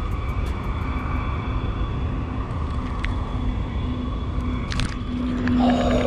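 Steady low rumble of wind on the microphone over a steady low hum, most likely a bass boat's electric trolling motor. The hum grows louder over the last second or so.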